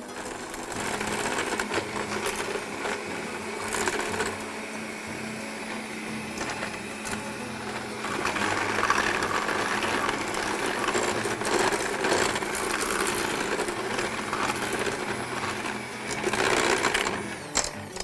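Electric hand mixer running steadily, its beaters creaming soft butter and sugar in a stainless steel bowl; it grows louder around the middle of the stretch.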